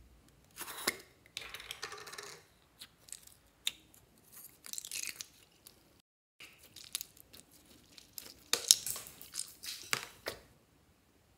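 Hands working slime: a plastic slime tub being handled and opened, then slime squeezed and pressed, giving irregular wet crackling, squishing and clicking. The sound cuts out for a moment about six seconds in, and the loudest crackling comes near the end.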